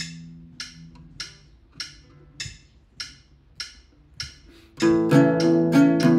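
Phone metronome app clicking at 100 beats a minute, a sharp tick a little over half a second apart. About five seconds in, an acoustic guitar comes in strumming chords in A major, and the clicks go on under it.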